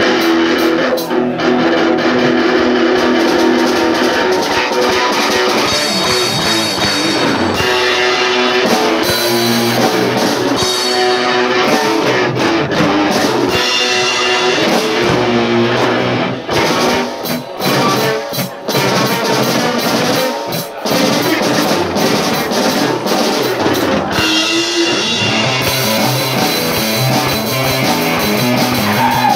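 Live rock band playing: two electric guitars, electric bass and drum kit, with a few short stop-start breaks about two-thirds of the way through.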